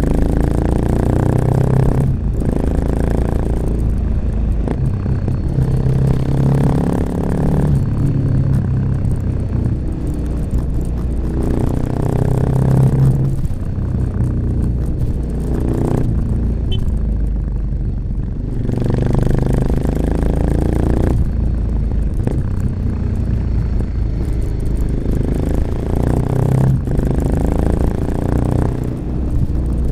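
A 1986 Honda XL600RM's single-cylinder four-stroke engine running through an aftermarket XRacing exhaust with a dB killer, the motorbike being ridden with the throttle opened and closed repeatedly. Stronger stretches under power alternate with quieter, thinner stretches off the throttle, with a few brief sharp dips in the sound.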